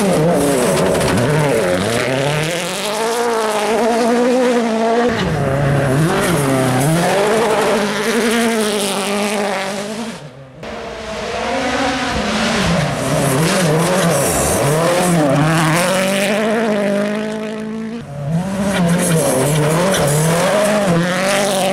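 Ford Fiesta WRC 2017 rally car's 1.6-litre turbocharged four-cylinder engine driven hard, revving up and falling back again and again through gear changes and corners. The sound cuts off abruptly twice, about ten seconds in and again near eighteen seconds, then picks up again.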